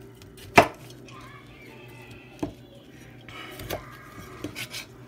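A chef's knife cutting small pears on a cutting board: one sharp knock of the blade on the board about half a second in, then a few lighter knocks, with soft slicing and scraping in between.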